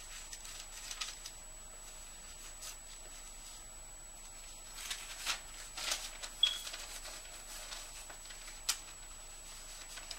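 Sheets of paper and cards rustling as they are handled and sorted, in short scattered rustles, the busiest a little past the middle, with one sharp crackle near the end.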